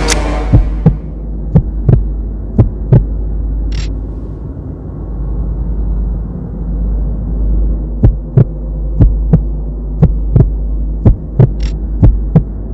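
Heartbeat sound effect over a steady low droning hum: paired thumps about once a second, thinning out for a few seconds in the middle and then coming back. A rushing noise fades out just after the start.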